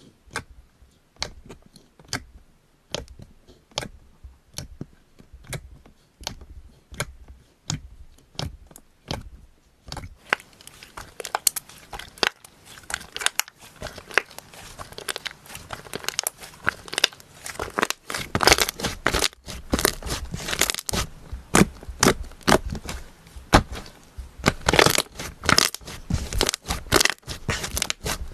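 Slime being pressed and worked by hand, giving sharp crackling pops, sparse at first at about one a second, then dense crunching from about ten seconds in that grows louder in the second half.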